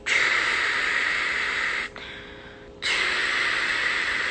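A woman making a long hissing, static-like noise with her mouth, imitating white noise. It breaks off for about a second just before the middle, then starts again.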